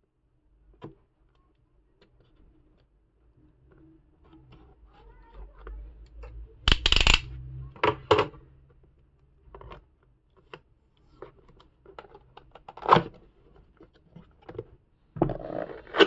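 Handling a cardboard keyboard box and its packaging while opening it: scattered light taps and clicks, with a louder scrape about seven seconds in and a sharp knock about thirteen seconds in.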